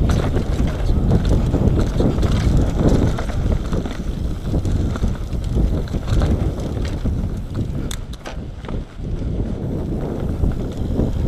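Nukeproof Mega 275 enduro mountain bike descending a dirt trail: tyres rumbling over the ground, wind buffeting the action camera's microphone, and rattles and clicks from the bike over bumps, with a cluster of sharp knocks about eight seconds in.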